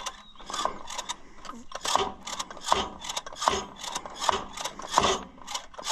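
Newly installed clutch and release linkage on an Allis-Chalmers 175 diesel tractor being worked by hand, clacking metallically about once every three-quarters of a second as it is tested.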